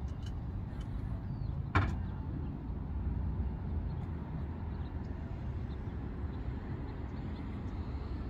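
Aerial ladder fire truck's engine running with a steady low drone, and a single sharp knock about two seconds in.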